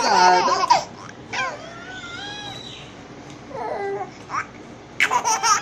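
A baby's high-pitched squeals and coos that glide up and down in pitch: a loud squeal at the start, softer rising and falling calls through the middle, and another loud squeal near the end.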